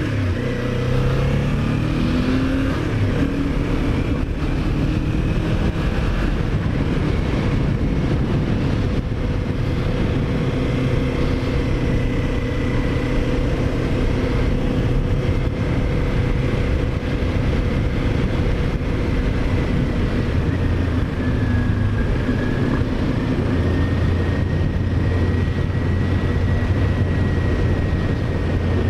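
Kawasaki Ninja 400's parallel-twin engine pulling up in pitch over the first few seconds as the bike accelerates, then holding a steady cruising note with small changes in speed.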